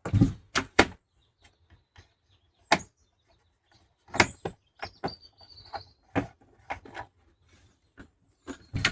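Hard clicks and knocks, about a dozen of them at uneven intervals, as a chain-sharpening attachment is fitted and clipped onto a chainsaw.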